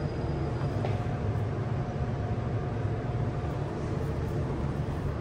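Steady low hum of commercial kitchen machinery, with a faint thin tone over it for the first few seconds.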